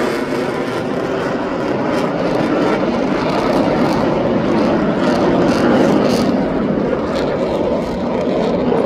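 Airplane engine noise: a loud, steady rumble that neither clearly builds nor fades.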